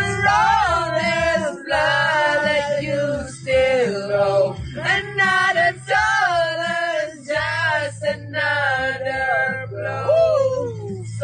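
A small group of voices singing a song together, with held, wavering notes, over backing music.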